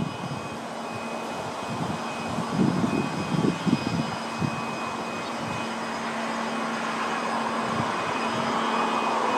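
Distant jet engine noise from an Embraer 170 airliner rolling on the runway after landing: a steady rushing hiss with thin whining tones, growing a little louder toward the end. Wind buffets the microphone in the middle.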